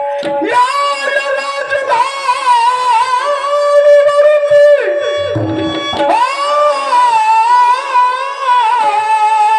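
Devotional singing of a Marathi kirtan refrain: one voice in long, bending held notes over a steady sustained accompaniment note, with a short break about five seconds in.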